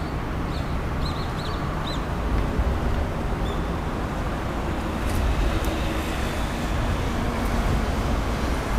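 Steady low rumble of city traffic noise, with a small bird chirping a few quick notes during the first two seconds.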